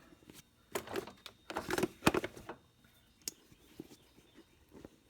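Handling noises: a few short rustles and scrapes, with sharp clicks about two seconds in and again a second later, then fainter ticks, as the camera is adjusted and moved into position.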